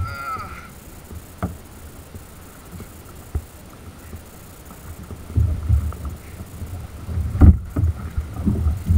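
Wind buffeting the microphone and choppy sea water slapping around a kayak, with scattered knocks. The gusts and splashing grow stronger from about halfway and are loudest near the end.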